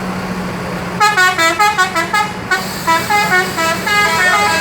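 Bus 'telolet' multi-tone air horn playing a fast tune of short notes, which starts about a second in, over a steady low engine hum.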